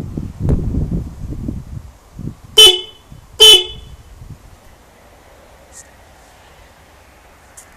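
Two short blasts, a little under a second apart, from a 24 V twin-tone trumpet horn fitted to a Suzuki GSF650 Bandit motorcycle. Low rumbling noise comes before them.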